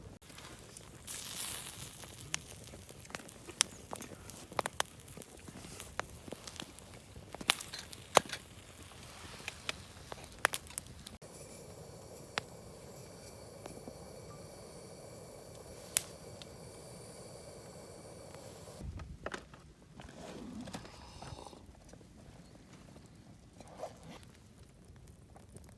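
Wood campfire crackling, with sharp irregular pops and snaps over a low hiss.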